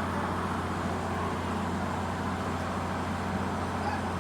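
Steady low electrical hum with background hiss from an idle sound system between tracks.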